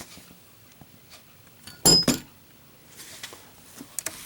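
A lit Zippo 1941-replica lighter dropped in a drop test, landing on a hard surface with one sharp metallic clink about two seconds in and a short high ring after it. Only a few faint clicks come before and after.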